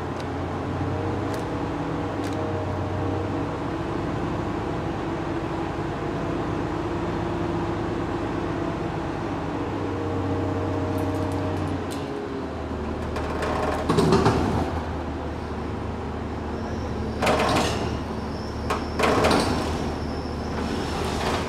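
A machine motor running with a steady hum that shifts to a lower, plainer drone about halfway through. Three loud bursts of noise come in the second half.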